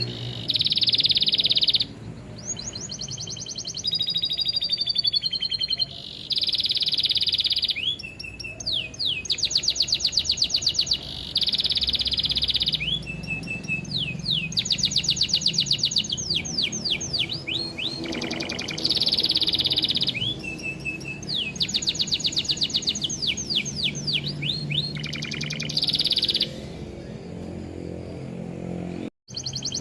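Domestic canary singing in long, fast trills and rapidly repeated notes, one phrase after another, mixed with lovebird-style chattering phrases, over soft background music. The sound cuts out for a split second near the end.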